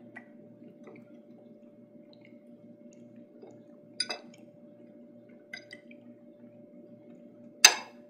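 Sharp, ringing clinks of hard objects against a steady low hum: a weak one near the start, a clear one about four seconds in, a fainter one soon after, and the loudest near the end.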